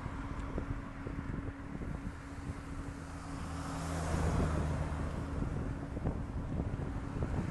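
Wind buffeting a bike-mounted camera's microphone while riding, over the low hum of passing motor traffic that grows louder about four seconds in.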